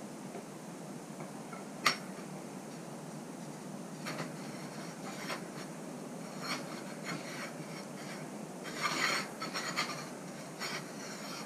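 Metal pipe sliding and rubbing through a metal clamp block: scattered light metallic clicks, a sharp click about two seconds in, and a brief scrape about nine seconds in.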